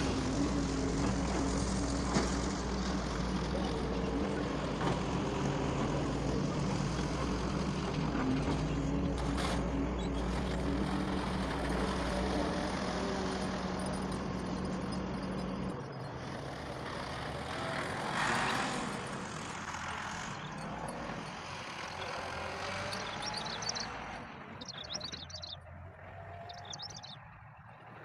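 A heavy diesel engine runs steadily at a low hum, then drops away about halfway through with a brief swell soon after. Birds chirp near the end.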